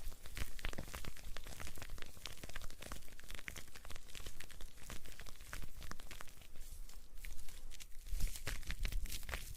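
Close-miked ASMR crackling and rustling: a dense, irregular patter of tiny clicks, with a low rumble near the end.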